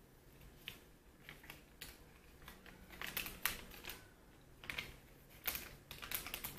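A person chewing a soft, date-like snack close to the microphone: irregular small mouth clicks and smacks, bunched a few seconds in and again near the end.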